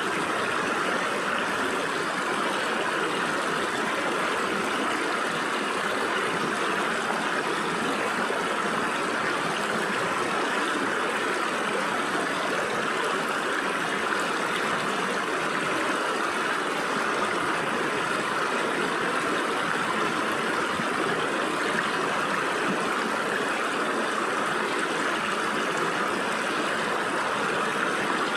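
Stream water running through gaps between rocks, a steady rushing with no pauses or distinct splashes.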